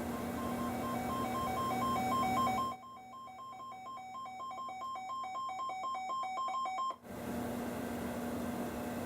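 A weather radio's alert alarm: a rapid beeping that alternates between a higher and a lower tone several times a second, signalling that a warning alert has been received. It plays over radio static, which drops away about three seconds in and comes back as the beeping stops about seven seconds in.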